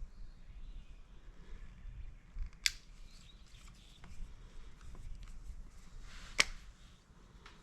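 Small clicks and handling noises from hand work, with two sharp clicks, one about a third of the way in and one near the end. There is no engine running.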